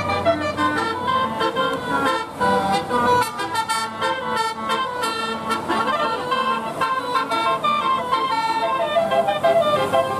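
Bus 'telolet' horn, a multi-tone musical air horn, playing a quick melody of short stepped notes.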